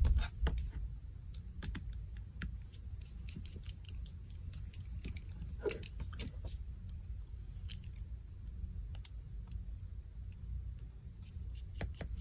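Scattered light clicks and taps of small airsoft pistol parts being handled, with a steel pin punch knocking and scraping against a small black part, over a low steady hum.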